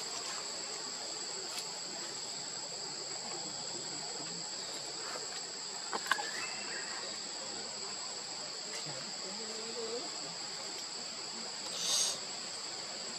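Steady high-pitched insect chorus holding two high pitches, with a sharp click about halfway through and a brief louder rasp near the end.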